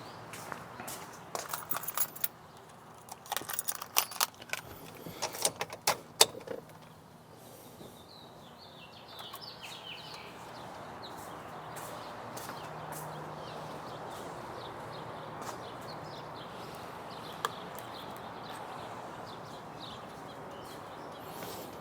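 A bunch of keys jangling and clinking in hand for about six seconds, followed by a steady background noise.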